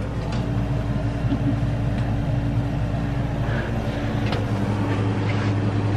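Steady hum of an air conditioner running, a low drone with a steady higher tone over it, and a few faint taps.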